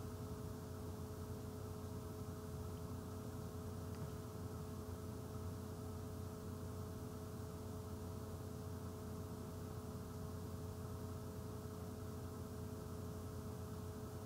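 Steady electrical hum with hiss: a low drone and two steady higher tones.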